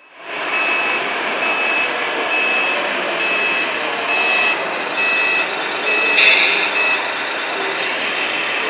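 Reversing beeper from a radio-controlled truck's sound module, a high beep repeating about once a second over a steady hiss. A louder short blast comes about six seconds in.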